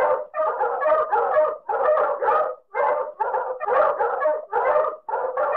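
Dog barking in fast runs of short, sharp barks, several a second, with brief breaks between the runs.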